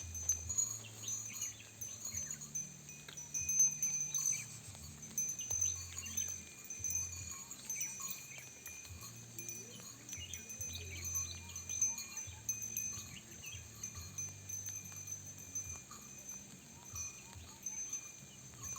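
Relaxing ambient music: low held bass notes that change every second or two under light, tinkling chime-like tones.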